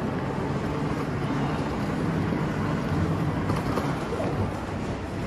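Steady background ambience inside a large shopping mall: an even low hum with a hiss above it, no distinct events.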